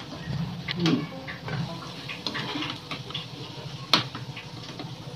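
Faint sizzling of corn pakoras deep-frying in hot oil, with a few light clicks and one sharp click about four seconds in.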